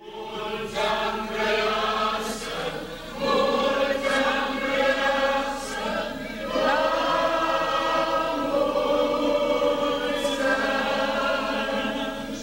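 Choir singing an Orthodox liturgical chant in Romanian, several voices together on long held notes.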